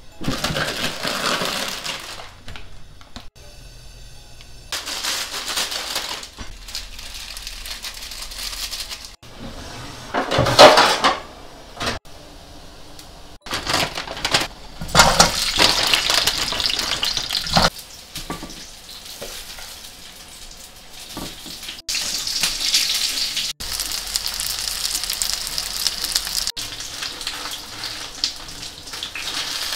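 Kitchen cooking sounds in a run of short cuts: plastic food packets and bags rustling, oil sizzling in a frying pan, and pots and pans clattering on a gas hob. A short, loud noisy burst comes about ten seconds in, and a steady sizzle fills the last several seconds.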